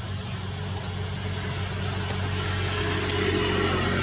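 A steady low engine hum with a hiss over it, growing slightly louder about halfway through.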